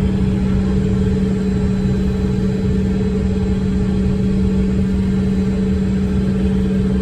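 Steady cabin drone inside a Bombardier CRJ-200 regional jet: a constant low rumble carrying two steady hum tones, unchanging throughout.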